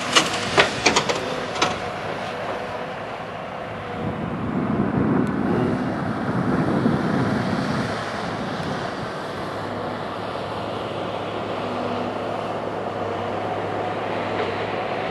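An engine running steadily in the background, with a few sharp knocks in the first couple of seconds and a low rumble that swells for a few seconds in the middle.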